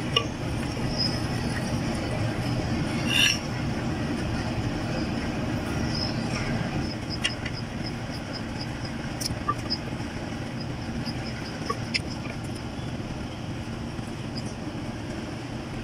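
Gas stove burner running with a steady low rushing under a clay pot of heating oil, with a few faint light clicks and ticks over it.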